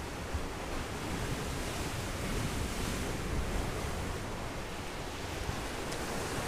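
Sea surf washing steadily on the shore, with wind rumbling on the microphone; the wash swells a little a couple of seconds in.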